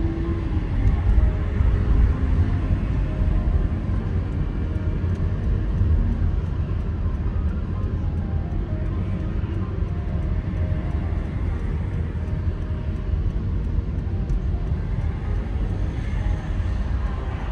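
Steady low rumble of a car driving along a road: tyre and engine noise with no break.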